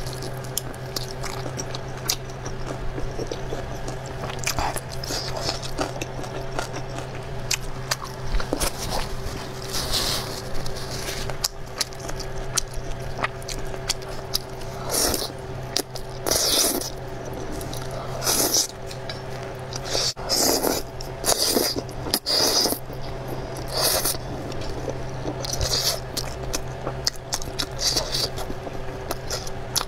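Close-miked eating sounds: wet chewing and slurping of soft noodles in a thick sauce, with chopsticks scraping against a metal bowl, in irregular bursts over a steady low hum.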